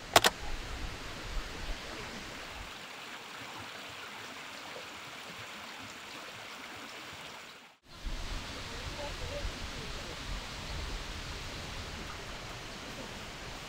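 Steady rushing of a mountain stream pouring over boulders, opening with one sharp click. About eight seconds in the sound cuts out for an instant, then a similar steady rushing noise resumes with a few faint low thuds.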